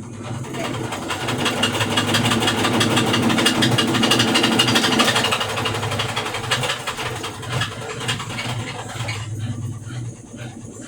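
Brastemp BWK12 washing machine spinning, with a fast rattle like a shaker over the drum's running hum: the abnormal noise this machine makes in its spin cycle. The rattle builds over the first couple of seconds, is loudest near the middle, then eases somewhat.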